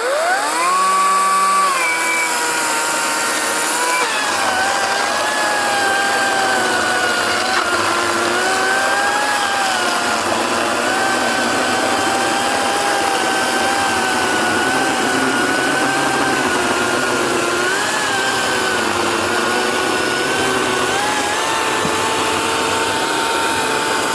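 Battery-powered electric chainsaw spinning up to a high whine, then dropping in pitch and wavering as the chain bites, consistent with cutting through wood. It runs steadily for about twenty seconds.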